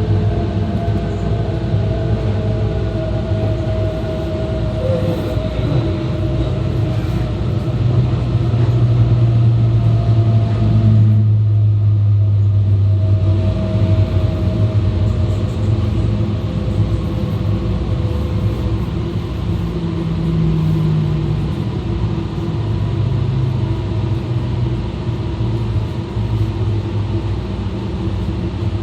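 E2 series Shinkansen running at speed, heard from the vestibule between cars: a steady low rumble with several whining tones from the Mitsubishi IGBT inverter drive and traction motors. About eleven seconds in the hiss briefly drops away while the low hum swells.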